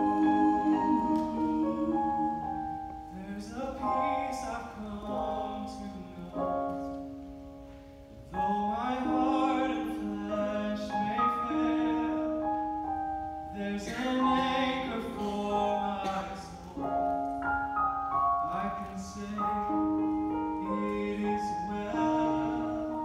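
A men's vocal quartet sings a worship song live over an instrumental accompaniment of held chords, with one male voice leading the verse.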